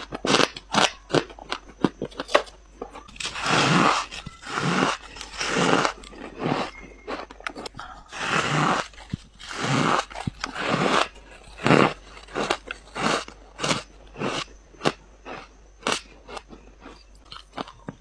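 Close-miked biting and chewing of fluffy freezer frost: a run of crisp crunches, some short and sharp, others drawn out over about half a second.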